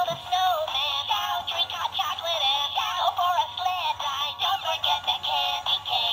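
Tinny electronic singing of a Christmas song from the small speaker of an animated singing Christmas decoration, thin with no low end.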